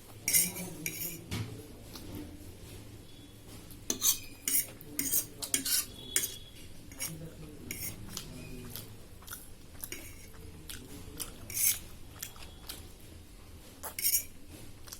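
Metal cutlery clinking and scraping against a plate while eating noodles: about a dozen short, sharp clinks at irregular intervals, bunched between about four and six seconds in.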